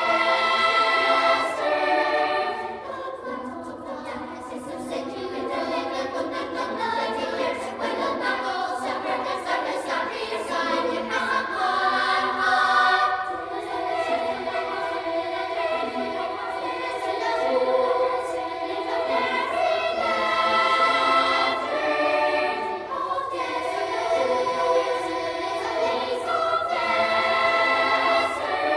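Children's choir singing, several voices together in phrases that swell and soften every few seconds.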